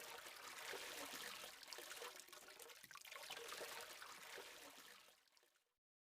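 Faint, steady rushing noise with small crackles, like running water, fading away about five seconds in.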